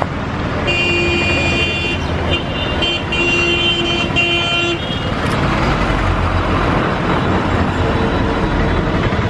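Street traffic with engines rumbling, and a vehicle horn sounding twice: a blast of about a second starting near a second in, then a longer one of nearly two seconds.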